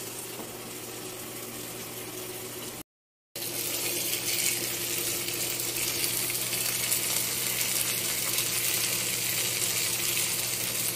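Chicken leg quarters sizzling in a Happycall double-sided grill pan, a steady hiss. It cuts out briefly about three seconds in and comes back louder.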